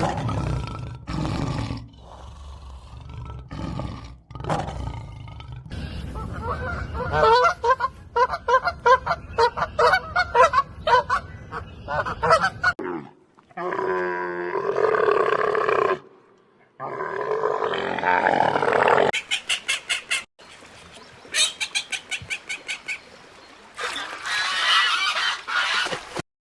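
A series of different animal calls, one after another with abrupt cuts between them. The longest stretch, in the first half, is a run of rapid repeated honking calls, followed by shorter calls of other animals.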